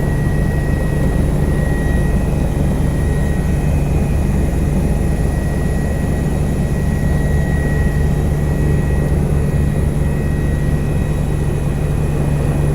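Helicopter in steady flight: a constant drone of rotor and engine with a thin, steady high-pitched turbine whine over it.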